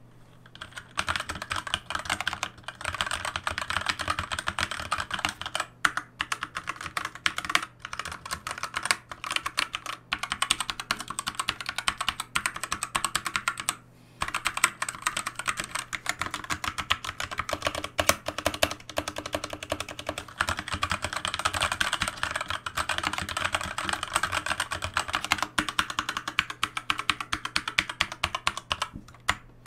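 Fast typing on a Logitech K835 TKL aluminium-framed mechanical keyboard with TTC Red linear switches: a dense run of keystroke clacks with a few brief pauses.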